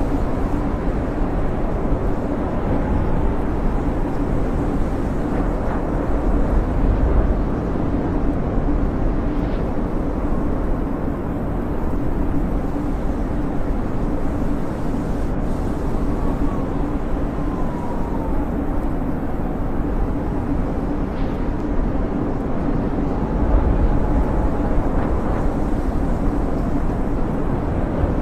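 Snowstorm wind blowing steadily with a deep rumble, and a faint whistling that glides up and down now and then.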